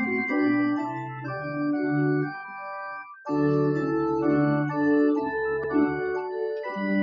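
Organ music: full sustained chords changing every half-second or so, with a brief break a little after three seconds in before the playing resumes. It is the postlude closing a worship service.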